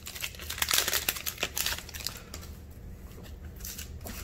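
Foil trading-card booster pack wrapper crinkling as it is torn open and the cards are pulled out, busiest over the first two seconds, then quieter handling.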